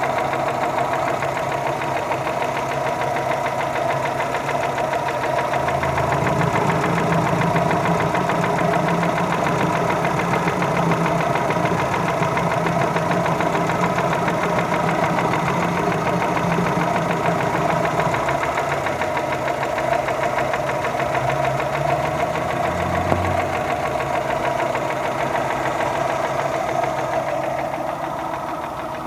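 Car engine running steadily with a rapid, regular knocking from inside the engine, the engine knock being checked. A deeper hum joins in for a stretch partway through.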